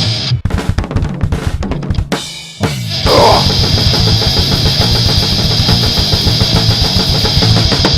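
Recorded heavy metal band: distorted guitars and bass drop out about half a second in, leaving drum hits. After a brief lull the full band with drum kit comes back in around three seconds and plays on.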